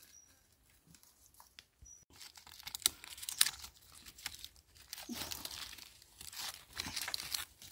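Close rustling, crinkling and tearing sounds with sharp crackles, starting about two seconds in and loudest around three and a half seconds.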